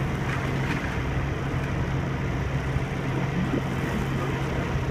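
Boat engine running with a steady low hum under an even wash of wind and water noise.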